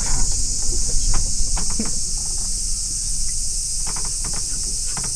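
Cicadas buzzing steadily in a high, unbroken chorus over a low rumble.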